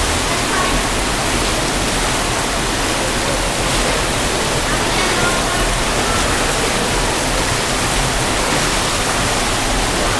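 Steady rushing water noise in an indoor swimming pool, with a small child splashing as she kicks and paddles.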